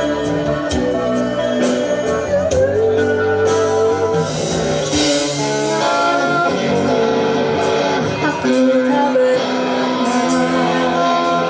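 Band music with a singer's voice over guitar, played in a large hall.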